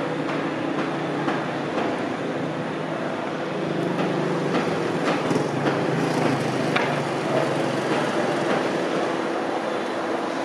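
Steady city din of road traffic and a passing train, with a run of sharp clicks and knocks that gets louder between about four and seven seconds in.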